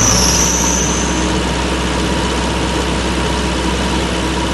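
JCB 3DX backhoe loader's Kirloskar diesel engine revved up from idle and held at a steady raised speed. A brief high whine comes in the first second.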